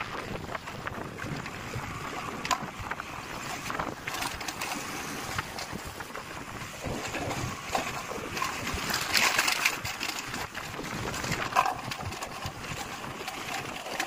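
Motorcycle riding noise: the engine running under way, with wind rushing and buffeting over the microphone in uneven gusts.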